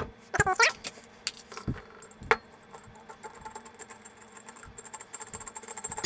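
Metal tools and hardware handled on a wooden workbench: a few knocks and clinks, the loudest a little past two seconds in, then a long run of fast, light metallic clicks.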